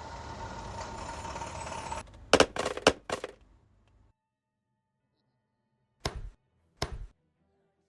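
Recreated foley sound effects: about two seconds of a steady rushing hiss with a faint hum, cut off by a quick run of loud knocks. After a pause, two single knocks follow, about a second apart.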